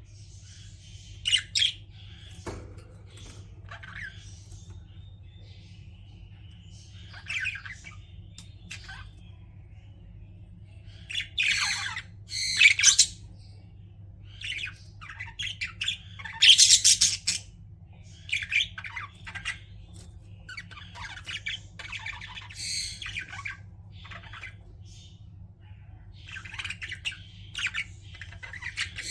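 Pet budgerigars chirping and squawking in short, irregular bursts of chatter, loudest a little before and after the middle. A steady low hum runs underneath.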